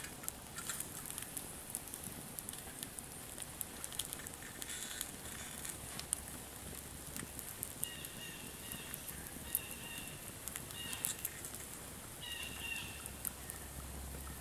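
Small wood fire in a dug-out Dakota fire pit crackling and popping with frequent sharp snaps. A few short high whistling notes come in over the second half.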